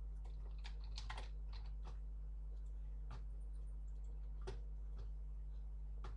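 Faint, irregular keystrokes on a computer keyboard, with a small cluster about a second in, over a steady low electrical hum.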